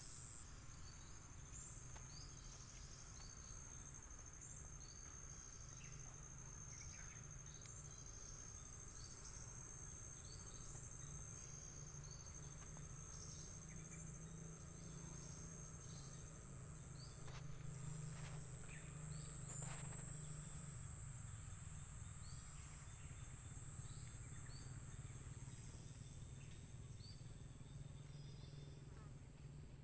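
Faint, steady high-pitched drone of insects, with many short chirps scattered through it and a low rumble underneath.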